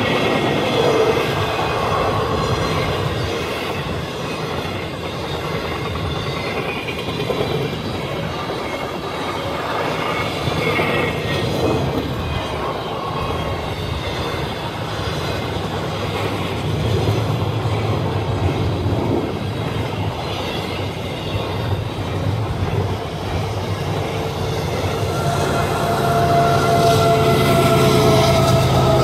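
CN train #121's cars rolling past on the rails, a continuous loud rumble of wheels and rail joints. A steady droning tone joins in near the end.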